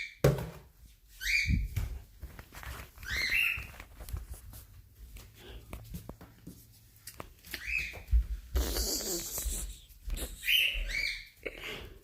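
Pet bird giving short, rising chirps, about six of them spread out with gaps between, and a brief burst of noise about nine seconds in.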